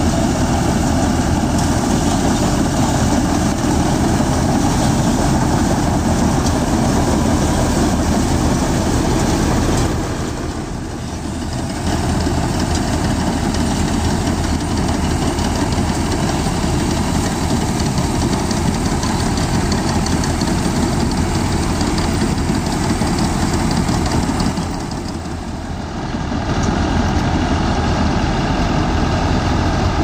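John Deere 5310 tractor's three-cylinder diesel engine running steadily under load, driving a tractor-driven Standard TSC 513 combine harvester as it cuts and threshes paddy: a loud, continuous mechanical din. The level dips briefly twice, about ten seconds in and again about twenty-five seconds in.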